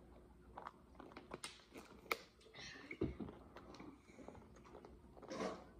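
Faint mouth and table noises of eating and drinking: small scattered clicks, sips from a plastic water bottle, and a soft knock about three seconds in.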